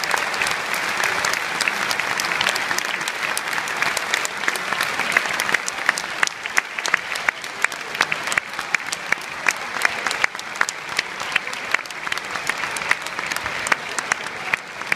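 Large theatre audience applauding at the close of a show. The clapping is dense at first and thins somewhat in the second half, where single sharp claps close by stand out.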